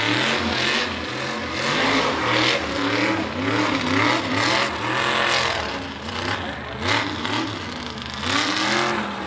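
Mega mud truck's engine revving hard in repeated bursts, its pitch rising and falling about once a second as the driver works the throttle through the mud.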